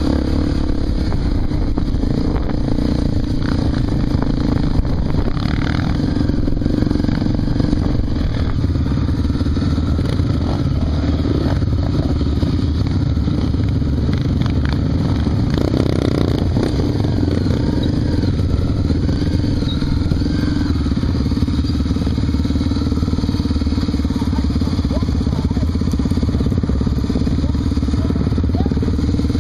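Honda Tornado 250's single-cylinder four-stroke engine running at a fairly even pace under way, with scattered knocks and rattles over the top.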